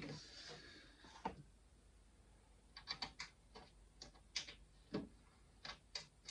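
Faint, irregular light clicks and taps, about a dozen scattered over several seconds, after a brief soft rustle at the start.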